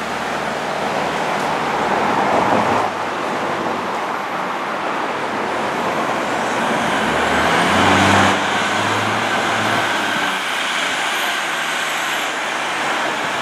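Diesel engine of a 2007 Spartan Gladiator fire engine pulling away and accelerating. Its low rumble rises in pitch and grows to its loudest about eight seconds in, then eases off.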